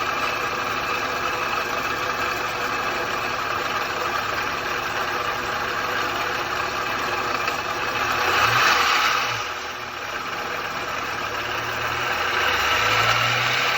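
Range Rover 3.0 TDV6 V6 diesel engine running, with a clanking from the alternator's overrunning clutch pulley. The sound swells louder twice, about eight seconds in and again near the end.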